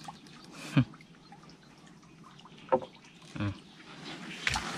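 Light water dripping and small splashes as a hand dips over the side of a small wooden canoe, with a few scattered short splashes and a livelier cluster near the end.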